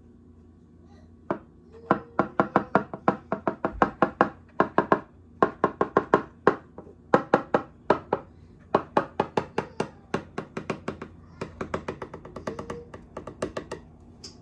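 Kitchen knife tapping rapidly against the rim of a pie dish while trimming excess pie crust from the edge, about four sharp clicks a second in runs with short pauses.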